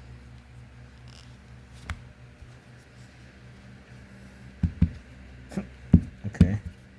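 Knocks and clatter from a hard plastic interactive dog toy being handled and shaken, a quick run of them starting near five seconds in, the loudest just before six seconds. A single click comes about two seconds in, and a low hum runs underneath.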